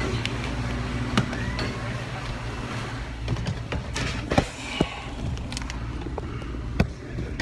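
Steady low hum with a few scattered sharp clicks and knocks, from hands working at a commercial freezer's condensing unit while the condenser fan motor blades are checked.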